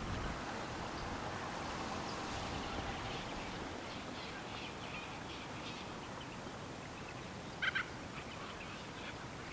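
Rural outdoor ambience: a steady low rush with faint scattered bird chirps, and one louder, short bird call about eight seconds in.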